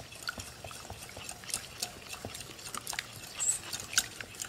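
Wire whisk beating egg yolks smooth in a glass bowl: quick, irregular clicks and taps of the wires against the glass.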